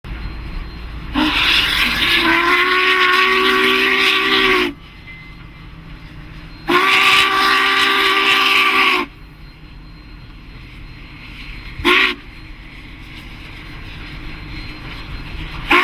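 Union Pacific 844's steam whistle sounding a chord of several notes: two long blasts, a short one, then a final long blast beginning at the very end, the long-long-short-long grade crossing signal. A steady lower noise from the moving train continues between blasts.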